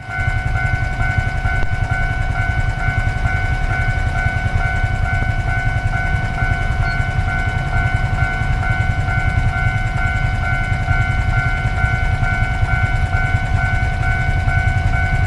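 Railway level-crossing warning bell ringing steadily, an electronic ding repeating about twice a second, over a low steady rumble.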